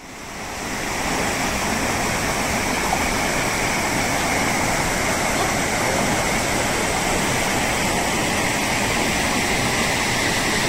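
Shallow rocky mountain stream rushing over stones and small cascades in a steady rush of water, fading up over the first second.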